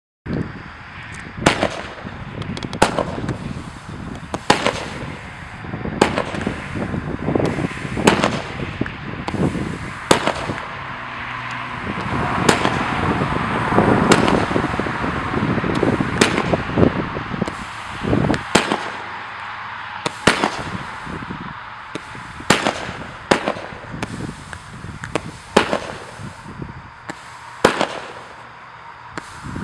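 Consumer fireworks cake firing: a string of sharp bangs every second or two, with a dense crackle swelling in the middle.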